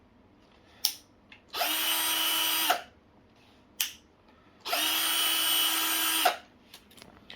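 Hychika DD18F cordless drill driver running with no load in two bursts, the first about a second long and the second about a second and a half. Each burst is a steady motor whine that spins up and winds down, and a sharp click comes shortly before each one.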